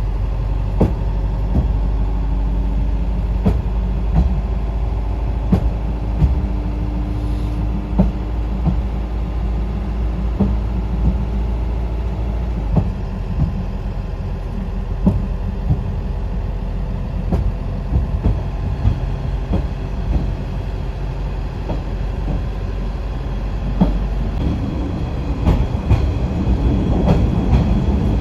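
Asa Seaside Railway DMV, a dual-mode bus-train, running on rails in train mode. Its engine gives a steady low drone, with scattered clicks and knocks from the wheels on the track, and the noise grows louder near the end.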